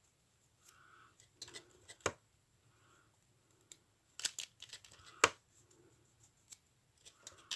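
Small craft pieces being handled on a cutting mat: a few sharp, separate clicks and taps, the loudest a little past halfway, with faint soft murmurs in between.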